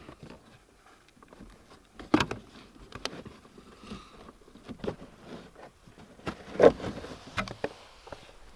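Plastic clicks, knocks and rustling from handling the cabin air filter cover and pleated cabin filter under the dashboard, with irregular knocks, the loudest about two seconds in and again about two-thirds of the way through.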